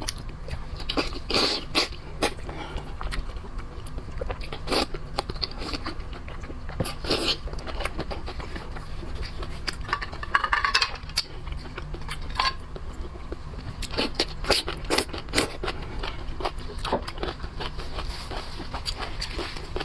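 Close-up eating sounds of shellfish: shells cracking and scraping, with biting and chewing, an irregular run of sharp crunches and clicks.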